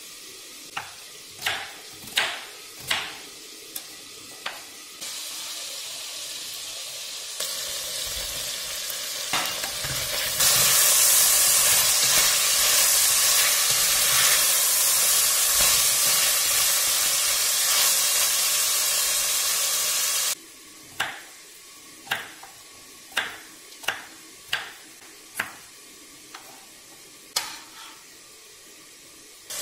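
A kitchen knife chopping an onion on a wooden cutting board, in sharp separate strokes. Then chicken, onion and red pepper sizzle in oil in a stainless pressure cooker pot while being stirred with a wooden spoon. The sizzle grows louder about ten seconds in and cuts off suddenly around twenty seconds, after which knife strokes on the wooden board return.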